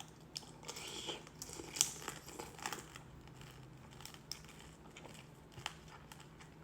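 Soft crinkling with scattered small clicks and ticks close to the microphone, busiest in the first few seconds and then sparser.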